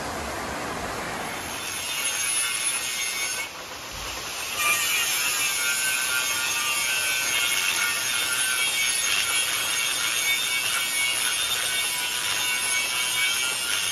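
Angle grinder grinding a steel sleeve that spins in a lathe chuck: a steady, loud high hiss and screech of the disc on metal. It builds about a second and a half in, drops briefly near four seconds, then carries on loud.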